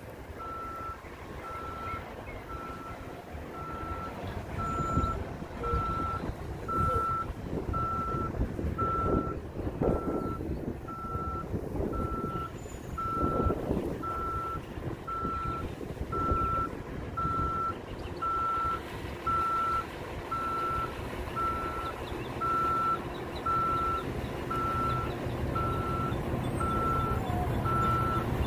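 Articulated transit bus reversing, its backup alarm beeping steadily about once a second over the low running of the bus. The rumble grows louder as the bus backs closer.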